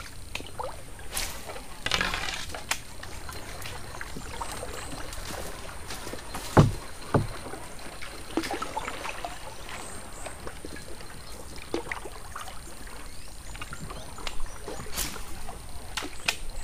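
Wooden canoe under way: quiet water sloshing with scattered light knocks against the hull, and two heavier thumps close together about six and a half seconds in.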